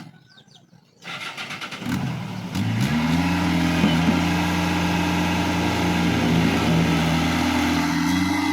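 An engine starting: a sudden noisy cranking about a second in, then the pitch rises and it settles into a steady idle.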